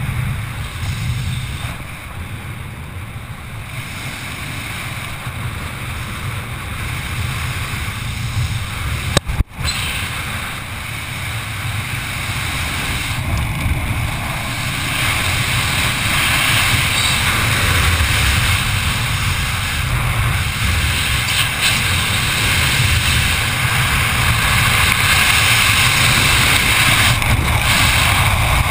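Wind rushing over the camera's microphone while descending under an open parachute canopy, getting louder through the second half. A short click and momentary dropout about nine seconds in.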